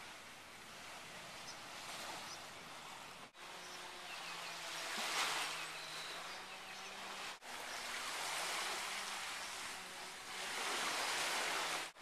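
Shoreline ambience: a steady rush of small waves washing in, swelling and easing, with a faint low hum underneath. The sound drops out briefly three times, at cuts between shots.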